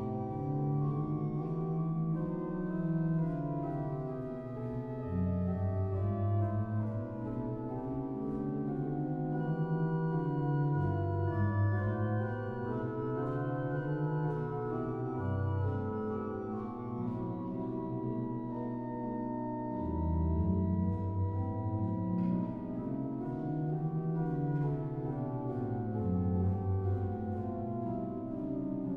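Pipe organ playing a trio: two independent melodic lines on separate manuals over a moving bass line, in steady flowing counterpoint.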